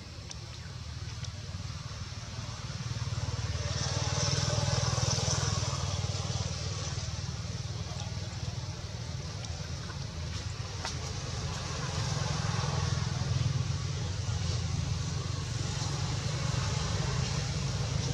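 Background rumble of motor traffic, swelling louder twice as vehicles pass.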